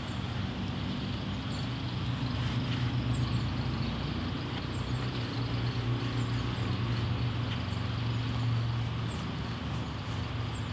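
A steady low engine hum that swells a little through the middle, with a few faint bird chirps over it.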